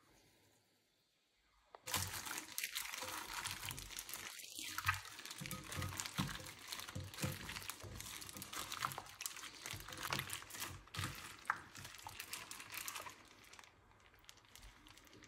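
Raw chicken pieces being mixed into a yogurt and spice marinade in a glass bowl, a busy run of wet crackling and small clicks that starts about two seconds in and dies down near the end.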